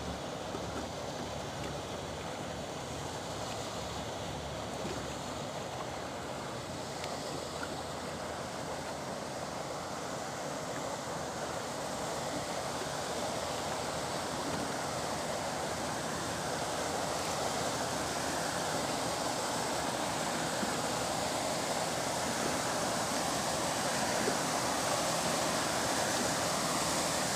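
Steady rush of lake waves and churned water from a paddle steamer's paddle wheels, growing slowly louder as the steamer draws close.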